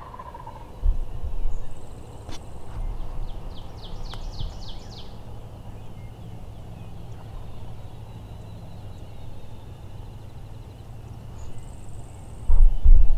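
A wild turkey gobbler gobbling, a rapid rattling call that falls in pitch and trails off right at the start. About a second in there is a low thump, and a few seconds later a quick run of high bird notes.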